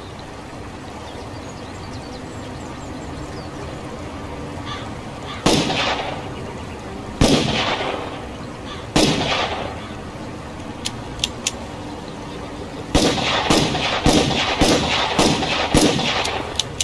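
Revolver gunshots: three single shots a couple of seconds apart, each with a ringing echo. Then come three light clicks, then a quick volley of shots fired in rapid succession.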